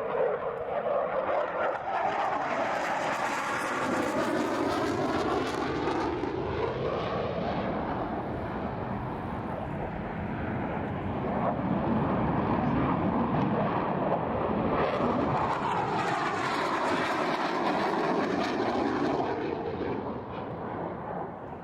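Blue Angels F/A-18 Super Hornet jets passing overhead: a loud, continuous jet roar with a sweeping, phasing quality. It swells once in the first few seconds and again in the later part.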